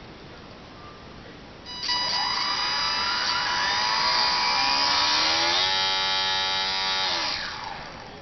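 Ultra-micro RC plane's small electric P-51 motor spinning its 5043 propeller: a high whine that climbs in pitch as the throttle comes up about two seconds in, holds steady, then winds down near the end.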